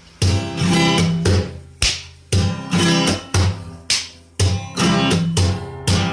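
Music: a plucked string instrument strumming chords, a strum about every half second, each chord ringing out and fading before the next.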